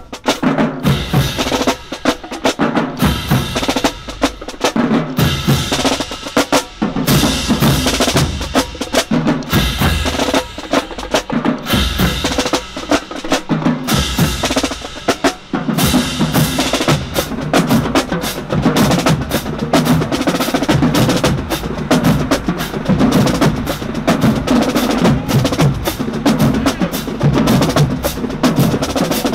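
Marching band drumline playing a cadence while marching in: rapid snare drum strokes and sharp clicky hits over bass drums, keeping a steady rhythm.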